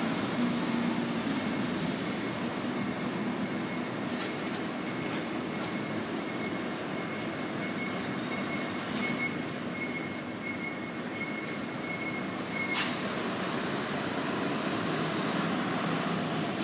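Fukui Railway tram pulling away and running along the track, with steady running noise and a thin high tone that holds for most of the time and stops at a sharp click about 13 seconds in.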